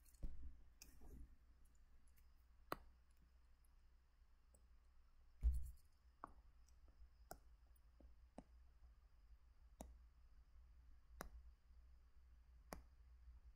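Faint, irregular clicks and taps, roughly one a second, from input strokes while drawing on a computer, with one louder dull thump about five and a half seconds in.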